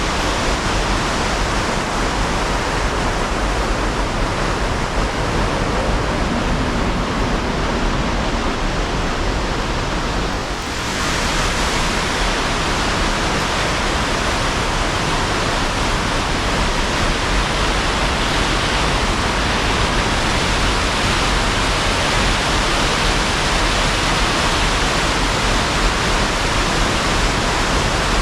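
Steady roar of water pouring over a river dam, an even rushing noise with a brief dip about eleven seconds in.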